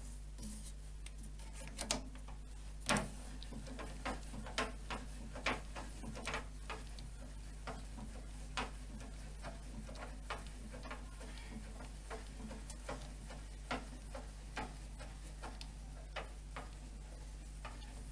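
Irregular light clicks and ticks from hand adjustment of a jointer-planer's thickness table, its locking knobs and height handwheel, over a faint steady low hum. The planer is not running.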